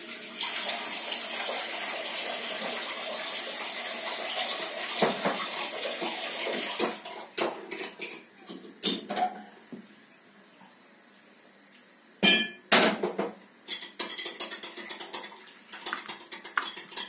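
Kitchen background noise: water running steadily for about seven seconds, then scattered clinks and knocks of dishes, with two louder knocks about twelve seconds in.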